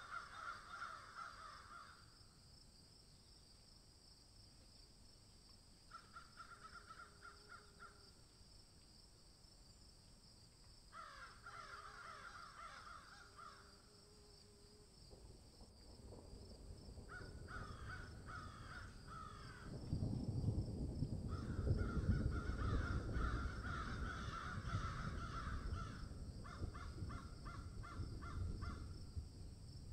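Animal calls in repeated bursts of rapid notes, each burst a second or two long with pauses between, over steady faint high tones. A low rumble builds from about halfway and is the loudest sound over the last third.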